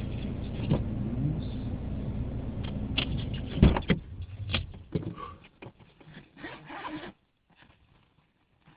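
Steady low hum inside a stopped car. About three and a half seconds in comes a sharp knock, then scraping and rubbing noises as the hum fades. It ends in near silence for the last couple of seconds.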